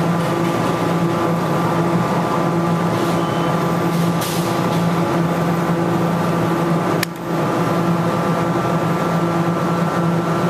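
Steady electrical hum of a Sega UFO Catcher claw machine as its claw works over the prizes, with one sharp click about seven seconds in.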